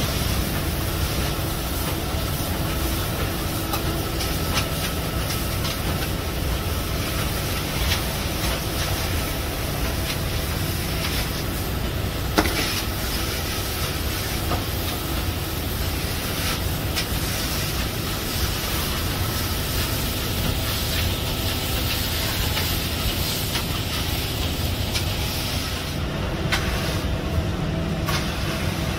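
Concrete pump running with a steady rumble and hiss while wet concrete is placed through its hose, with one sharp knock about twelve seconds in.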